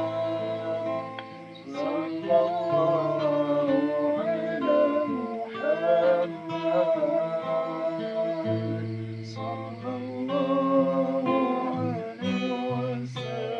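Acoustic guitar strummed and plucked under a voice singing a slow, wavering sholawat melody with heavy vibrato.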